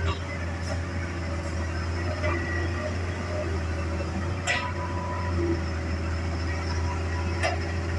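Hitachi excavator's diesel engine running with a steady low drone, broken twice by sharp knocks, about four and a half and seven and a half seconds in.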